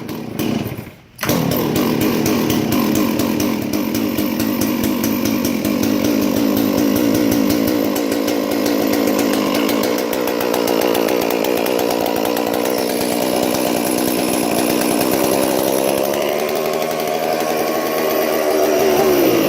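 Stihl 461 two-stroke chainsaw engine running. After a brief drop in the first second it is throttled up and held at high revs for most of the stretch, then falls off near the end. It runs fine even though a log rolled over the saw and smashed it.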